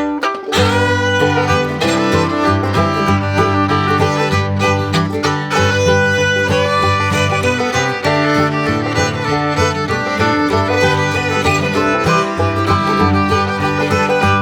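Background music: an upbeat bluegrass-style tune with fiddle over guitar and a steady bass line.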